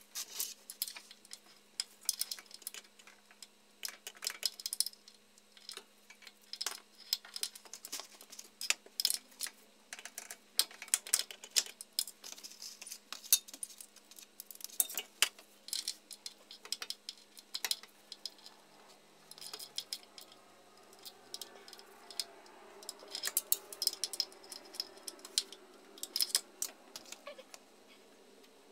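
Ratchet clicking in short irregular bursts, with light metallic clinks of hand tools, while the oil pan bolts are tightened.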